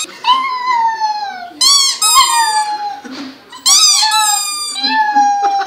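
A rubber squeaky toy squeezed in short paired squeaks, about two and four seconds in, answered by a puppy's high, drawn-out howls that slide downward in pitch as it 'sings' along with the toy.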